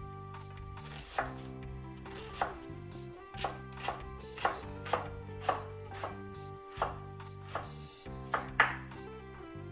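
Chef's knife slicing an onion on a wooden cutting board: about a dozen irregularly spaced knocks of the blade on the board. Soft background music with steady held notes plays underneath.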